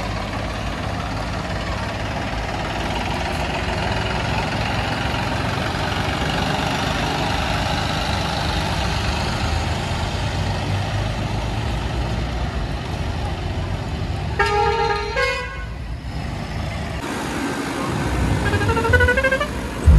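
Tractor engines running steadily amid traffic. A vehicle horn blasts for about a second, fourteen seconds in, and near the end a horn plays a quick run of rising notes.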